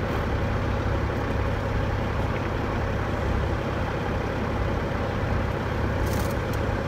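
Tri-axle dump truck's diesel engine running, heard inside the cab as a steady low drone with an even rush of cab noise over it. A brief light click about six seconds in.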